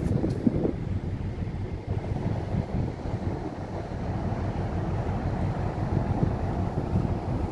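Wind buffeting the microphone on an open ship's deck, a steady low rush with no distinct events.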